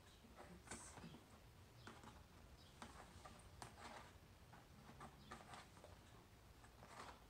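Faint, irregular scratching and scraping of fingers picking at a flat cardboard box, in short strokes.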